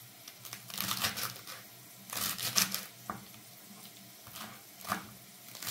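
Knife finely chopping Swiss chard stems, a few short runs of quick cuts with brief pauses between them.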